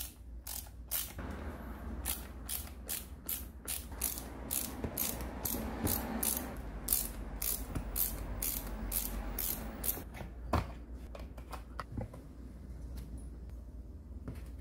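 Ratcheting hand screwdriver clicking in steady runs, about three clicks a second, as screws are backed out of an angle grinder's plastic housing. The clicking stops about ten seconds in, followed by a couple of sharper knocks as the housing parts are handled.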